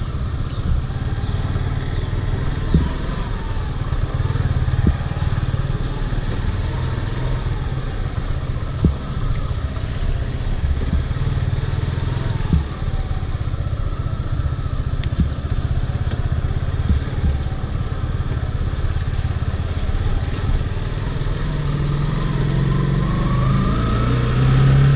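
Suzuki motorcycle engine running at low road speed, with a few short knocks along the way. The revs and loudness rise over the last few seconds.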